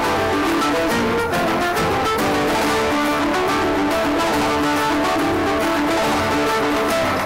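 Dance music playing steadily and loudly, a full instrumental mix with sustained notes and no voices.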